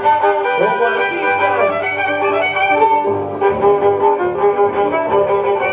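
Violins playing a carnaval tayacajino (tipaki tipaki) melody of held notes with some slides, over a steady low bass line.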